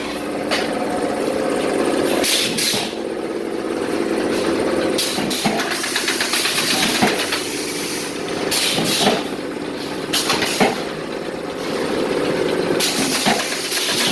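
Pneumatic spot welding machine running: a steady hum, with a short hiss repeating every second or two, several of them in quick succession near the end.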